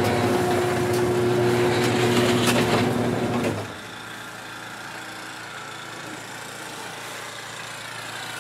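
A motor running with a steady hum and light clicking, cutting off suddenly about three and a half seconds in. After that only a quieter steady hiss remains.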